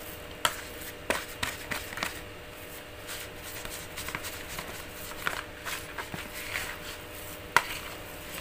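Plastic spoon scraping and knocking against a plastic bowl while stirring and pressing a thick tempe bait dough: irregular clicks and scrapes, the sharpest about seven and a half seconds in.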